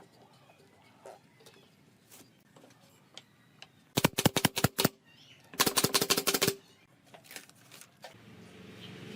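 A workshop power tool rattling in two short bursts of rapid, evenly spaced strikes, about ten a second, with a few faint clicks before them. A low hum starts building near the end.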